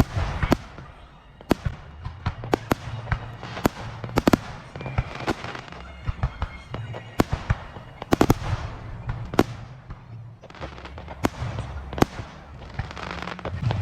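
Fireworks going off: a string of sharp bangs at irregular intervals, several a second at times, with crackling and hiss between them.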